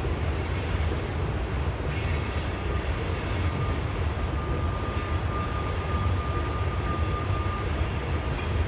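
CSX coal train rolling past, a steady low rumble of cars on the rails, with a thin steady high tone from about three seconds in to near the end.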